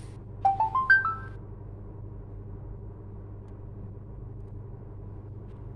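A short electronic melody of about six quick beeping notes, stepping mostly upward in pitch, sounds once about half a second in, over a steady low hum.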